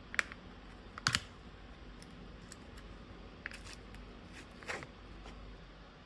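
A few light clicks and knocks from kitchen items being handled, the loudest about a second in, with fainter ticks between, over low room hiss.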